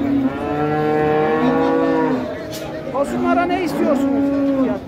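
Cattle mooing: one long, steady moo lasting about two seconds, then a second, more broken call from about three seconds in.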